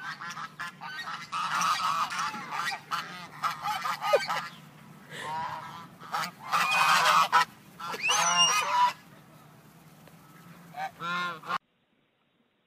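A flock of hungry domestic geese honking, many overlapping calls at once, breaking off abruptly near the end.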